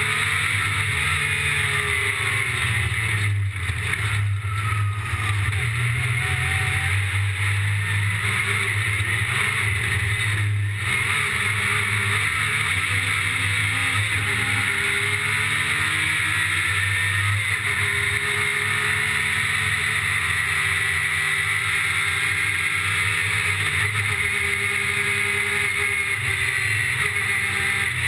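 Yamaha YXZ1000R side-by-side's three-cylinder engine running hard under load, steady and loud, with a few brief dips in the sound.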